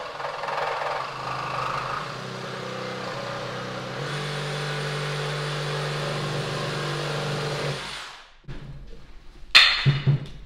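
DeWalt reciprocating saw cutting through a wooden 2x4. Its motor pitch wavers under load for a few seconds, then holds steady before the saw stops about eight seconds in. A sharp knock, the loudest sound, comes about a second and a half later.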